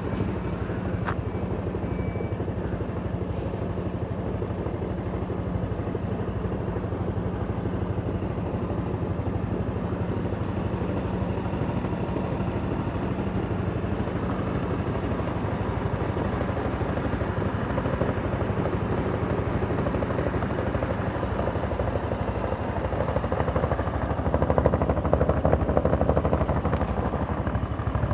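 Honda SES 125 Dylan scooter's single-cylinder four-stroke engine idling steadily, growing louder near the end as the rear of the scooter and its exhaust come close.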